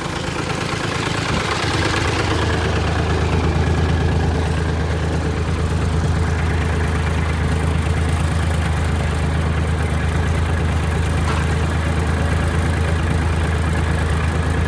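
Sawmill's engine running steadily to power the hydraulic log lift, growing louder over the first two seconds and then holding even.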